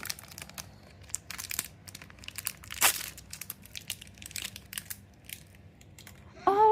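Cardboard and plastic blind-box packaging crinkling and tearing as it is opened by hand, in irregular small crackles and clicks.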